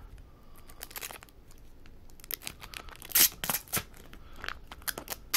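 Plastic packaging and small plastic parts being handled: irregular crinkling, tearing and clicking, with the sharpest crackle about three seconds in.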